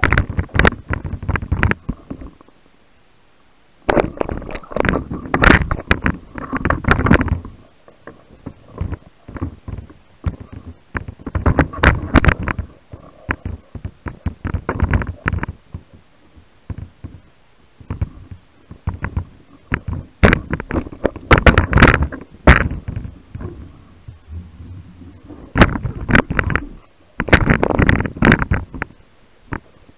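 Underwater handling noise from a speargun-mounted camera: bursts of knocks, clicks and gurgling rumble, each lasting one to three seconds with quiet gaps between, as a speared pike thrashes against the gun and the diver grips it.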